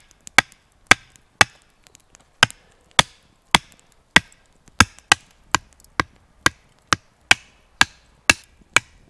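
Back of a hatchet hammering green wooden stakes into soft forest ground: sharp wooden knocks about two a second, with a brief pause about a second in.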